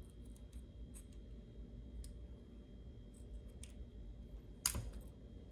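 Faint small clicks of side cutters being worked against a toothbrush battery's terminal, then one sharp snip about four and a half seconds in as the cutters bite through the battery's metal connection.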